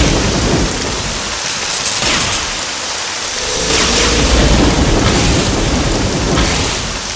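Heavy rain with thunder: a loud, dense rushing hiss, with deep rumbles swelling at the start and again about halfway through.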